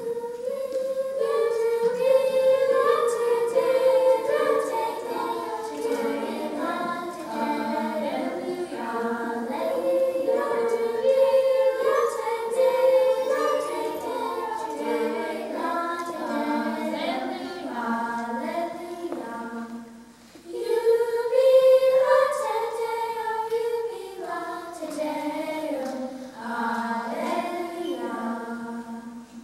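Children's choir singing, with a short break about two-thirds of the way through before the next phrase.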